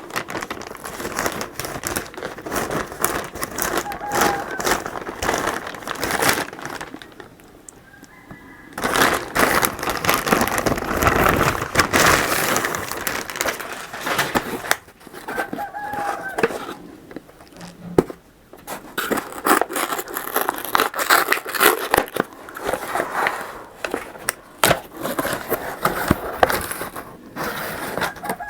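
Cardboard and plastic packaging being torn open and crumpled by hand as a parcel is unpacked: irregular rustling, crinkling and ripping, pausing briefly about seven seconds in.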